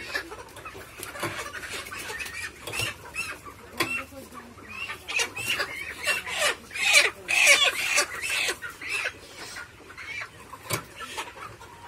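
Hens calling in a series of short calls, loudest in a cluster about seven seconds in.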